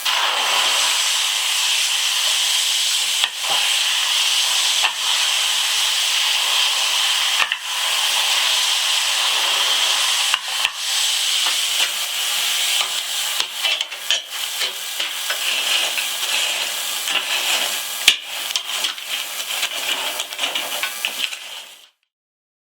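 Kitchen knife blade being ground against a rotating wheel, pressed on with a lever (teko): a steady grinding hiss broken by a few sharp knocks. It stops abruptly near the end.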